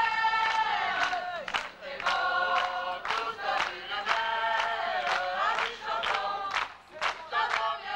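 A group of people singing together in chorus, with steady hand claps keeping time at about two a second.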